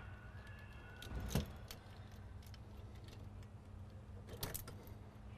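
Light clicks and small metallic knocks of push-on wire terminals being pulled off a headlight switch while the switch is handled. There is one louder knock about a second in and a couple of sharper clicks near the end.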